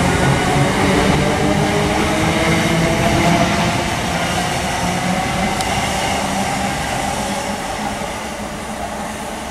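Southern Class 455 electric multiple unit pulling away, its traction motors giving a tone that slowly rises in pitch under the wheel and rail noise. The sound fades from about four seconds in as the train draws away.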